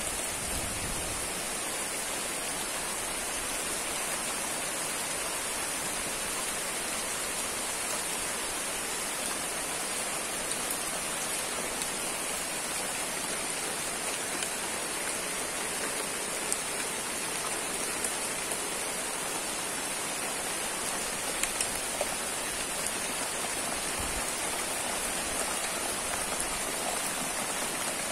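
Steady rain falling on trees and foliage, an even hiss with a few faint sharp drip ticks.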